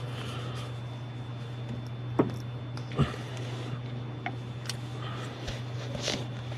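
Small handling noises from working on wiring by hand: two sharp clicks about two and three seconds in, and fainter rustles, over a steady low hum.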